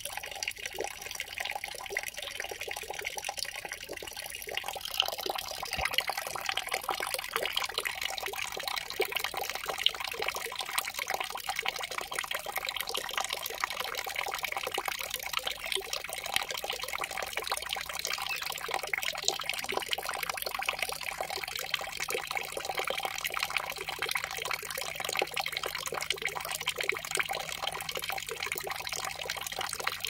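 Steady trickling, flowing water, a nature-sound water track.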